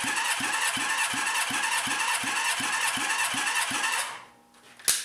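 Honda CB550 inline-four engine cranked over by its electric starter for a cold, dry compression test: a steady starter whir with a pulse about three times a second as the cylinders come up on compression. It stops about four seconds in, followed by a single sharp click near the end. The test reads a low 95 psi against the 170 psi the manual calls for.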